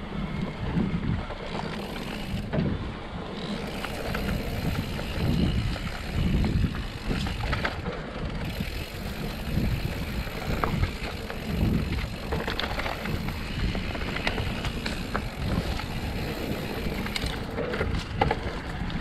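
Mountain bike ridden fast along a dirt trail: tyres rolling over the ground, with short rattles and knocks from the bike over bumps and a low wind rumble on the microphone.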